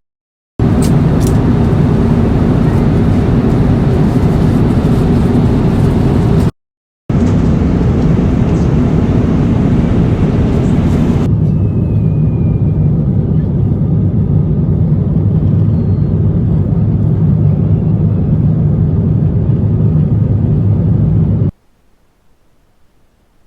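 Loud, steady rumble of a jet airliner heard from inside the cabin, in edited clips with hard cuts. One short break and a change in the hiss partway through mark the cuts. The sound stops abruptly near the end.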